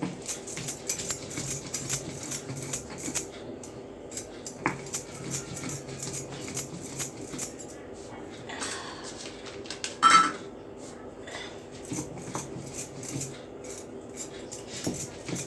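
Stone roller grinding dry ginger and sugar on a flat stone slab (pata), with repeated short scrapes and clacks of stone on stone, and a louder clack about ten seconds in.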